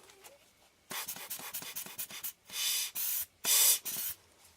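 Lens-cleaning tissue rubbed over a glass lens element: a run of short scratchy strokes, then three longer, louder hissing wipes.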